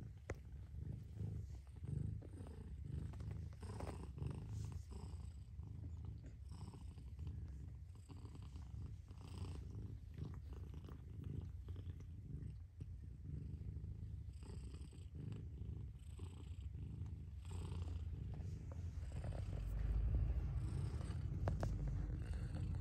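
Mother cat purring steadily while she grooms her kitten, a continuous low purr that grows louder near the end.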